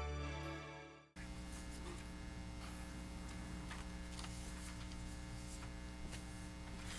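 Intro music fading out over about the first second, then a steady mains hum in the meeting-room audio feed, with a few faint scattered clicks.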